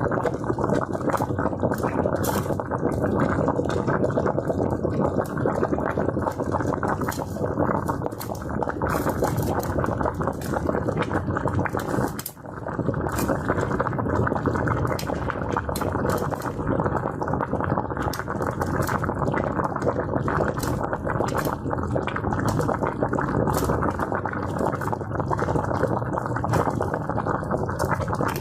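Water boiling hard: a steady, dense bubbling with many sharp little pops, dropping out for a moment about twelve seconds in.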